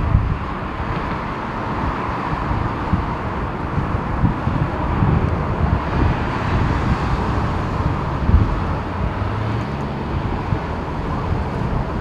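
Steady jet-engine noise from a Boeing 747-400 freighter taxiing at a distance, with strong gusty wind buffeting the microphone.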